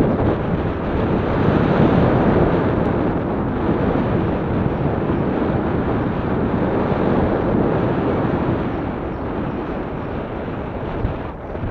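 Wind buffeting the microphone of a camera mounted on a moving recumbent bicycle: a steady rushing noise, easing slightly near the end.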